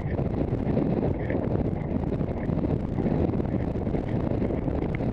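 Wind rumbling on a helmet camera's microphone as a horse gallops, with faint hoofbeats ticking about twice a second beneath it.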